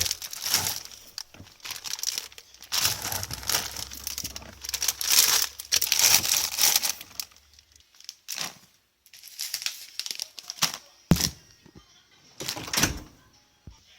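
Crinkling and rustling handling noise in irregular bursts, with a few sharp clicks in the second half.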